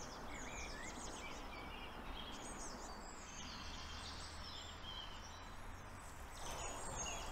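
Small birds chirping and singing in quick short phrases throughout, over a steady low hum of background noise.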